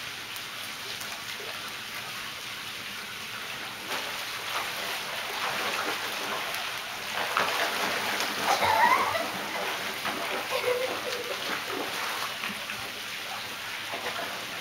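Water splashing from a child swimming and kicking across a pool, building up and busiest about halfway through, over a steady wash of background noise.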